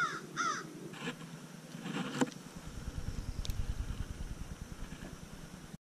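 A crow cawing twice in quick succession, followed about two seconds in by a single sharp click, with a low rumble running under the rest.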